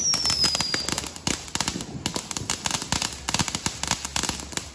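Ground firework on pavement spraying sparks and firing dense crackling pops, many a second. A short whistle falls in pitch during the first second.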